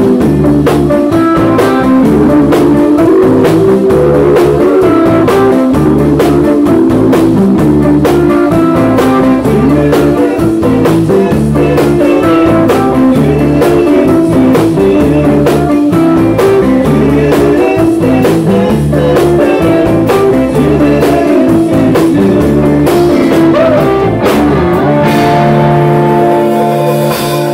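Rock band playing live: electric guitars (a Rickenbacker and a Stratocaster-style guitar) over a drum kit with a steady beat, closing near the end on a long held chord that rings out.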